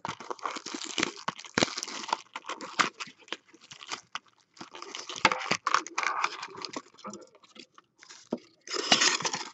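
Clear plastic wrap crinkling and tearing as a cardboard trading-card box is ripped open and its foil-wrapped packs are pulled out: a dense run of crackles and small clicks, with a louder burst of crinkling near the end.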